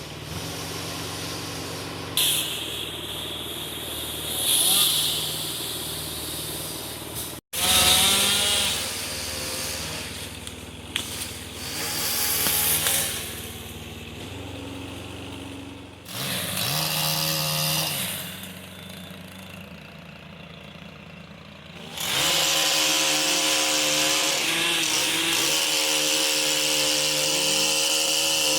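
Chainsaw working on a downed or standing pine, its engine revving up and dropping back in several stretches, with abrupt changes between them and a long, loud, steady run in the last third.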